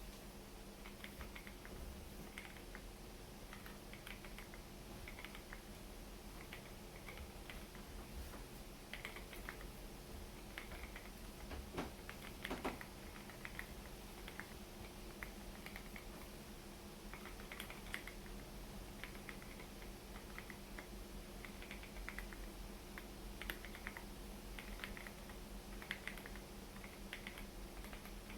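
Typing on a plateless 65% mechanical keyboard in a Lego Technic case, fitted with stock NovelKeys Cream linear switches: irregular runs of quiet key clicks, with one heavier keystroke about twelve seconds in.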